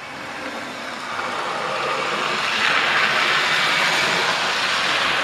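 Model train with maroon coaches running past close by: a steady rushing rumble of wheels on the track that grows louder over the first three seconds as it nears, then holds steady.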